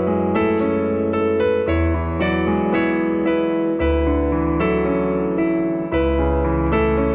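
Background music: piano or electric piano playing a gentle tune over a bass line that changes about every two seconds.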